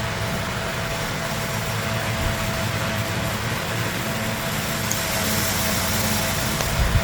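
Steady mechanical hum with an even hiss and a faint steady high tone, like a running fan or other appliance.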